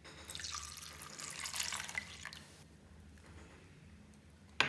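Water pouring and splashing into a glass dish for about two seconds, then a single sharp knock near the end.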